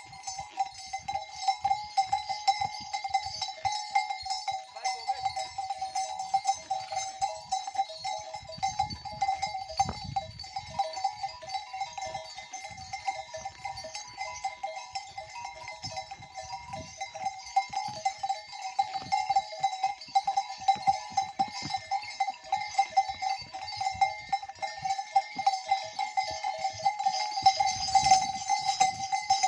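Metal bells on the trekking horses' harness jingling continuously in quick, uneven strokes as the horses walk.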